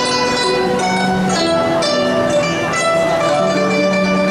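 Guzheng ensemble playing together: many plucked zither strings sounding at once, each note ringing on after it is struck.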